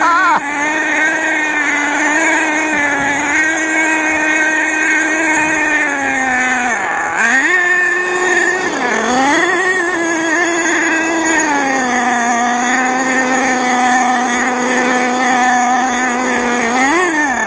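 Savage RC monster truck's small nitro engine running at high revs, a steady high-pitched buzz that drops and climbs back twice around the middle as the throttle is eased and opened, then holds a slightly lower pitch before revving up again near the end.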